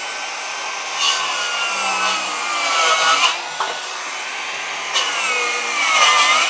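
Bosch GKS 185-Li cordless brushless circular saw, fitted with a Standard for Wood blade, running with a steady high whine and cutting through 4 cm thick MDF in two loud stretches, about a second in and again about five seconds in. The whine drops in pitch while the blade is in the board, as the motor takes the load.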